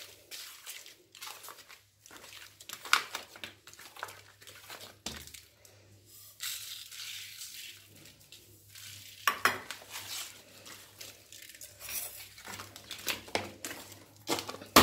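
Hands working on a plastic sheet over a wooden board: crinkling plastic with irregular taps and rustles as a sticky jaggery-sesame mass is pressed down. Sesame seeds are poured from a steel bowl and patter down in a steady hiss from about six and a half to nine seconds in. Louder plastic crinkling comes near the end as the sheet is folded over.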